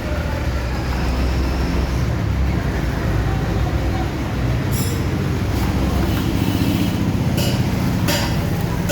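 Steady low rumble of motor vehicles, with a few sharp metallic clicks about five, seven and eight seconds in.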